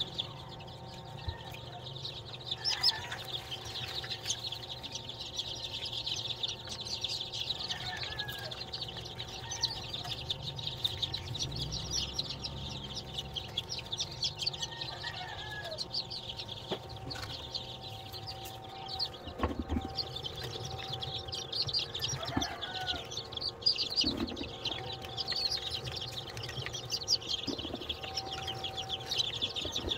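Many newly hatched chicks of upgraded native chickens peeping constantly in a dense high chorus, with a few knocks as they are handled in the wooden hatcher tray.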